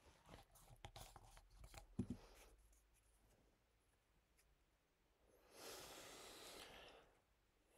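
Near silence in a small room: faint clicks and a soft knock about two seconds in, then a soft hiss lasting about a second and a half near the end.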